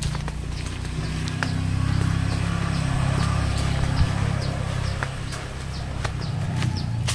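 Footsteps of someone walking, light ticks about twice a second, over a low steady rumble.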